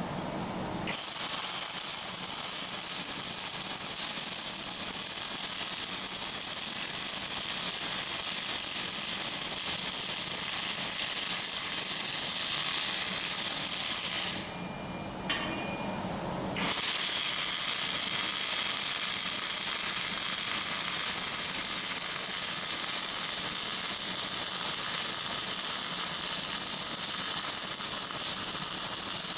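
Flux-cored wire-feed arc welding a fillet weld on steel angle bar, the machine at about 22½ volts with the wire feed a little light: the arc's steady crackle starts about a second in, stops for about two seconds near the middle, then runs again.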